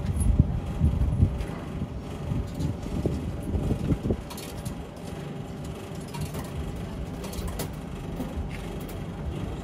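Cardboard boxes of vending-machine burgers being handled and knocked against the machine while it is restocked, with knocks and rustles heaviest in the first second and again around three to four seconds in. Under it runs a steady low hum.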